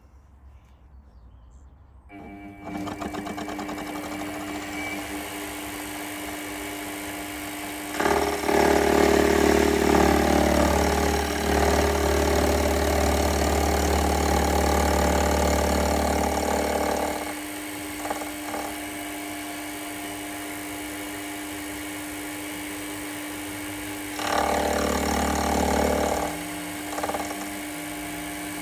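Milling machine motor starts about two seconds in and runs steadily. It gets much louder from about eight to seventeen seconds and again briefly near the end, as the cutter machines the model steam engine's base frame.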